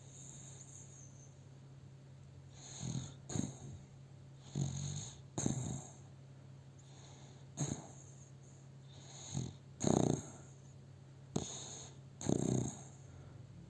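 Dog snoring in its sleep, with a loud rasping snore every two to three seconds, often as an in-and-out pair of breaths, over a low steady hum.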